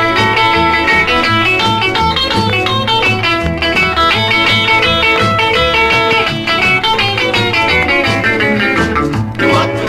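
Instrumental break in a honky-tonk country song: an electric guitar picks a fast lead of short notes over a steady bass line.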